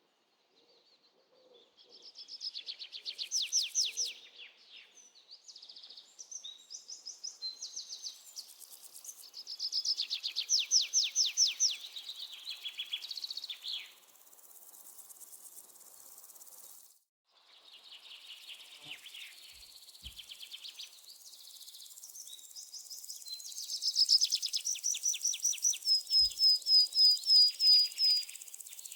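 Birds singing in rapid trilled and chattering phrases, ending with a run of about a dozen evenly spaced whistled notes. There is a short break about halfway through, and a high insect chirring comes in toward the end.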